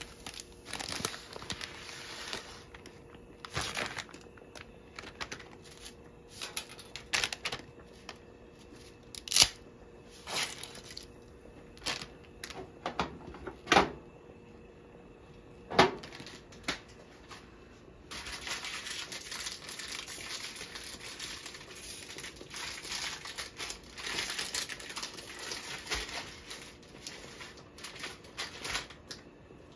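Dry spaghetti being snapped in half by hand: several sharp cracks spread through the first half, then a long stretch of dense crinkling and rustling.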